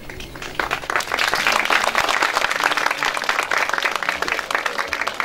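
Audience applauding, a dense patter of many hands clapping. It starts about half a second in and thins out near the end.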